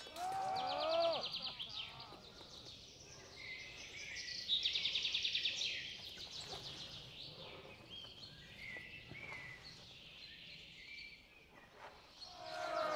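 Woodland birdsong: several small birds chirping, with fast trilled phrases about half a second in and again around four and a half seconds in, over a faint forest hush.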